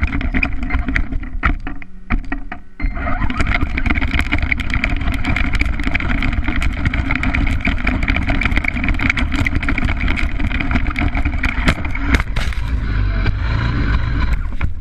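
Redcat Racing RC stadium truck driving over rough grass and dirt, its motor running steadily under a constant rattle of short knocks from the chassis on the bumps, picked up by a camera mounted on the truck. Near the end the higher rattle fades and a low rumble takes over.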